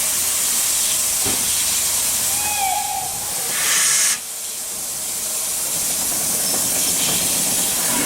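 Steam locomotive hissing steam, with a louder burst of steam about three and a half seconds in that cuts off suddenly.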